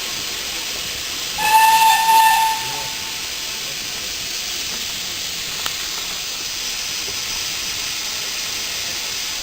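Steam locomotive hissing steadily as steam escapes, with one short whistle blast of about a second, a little more than a second in.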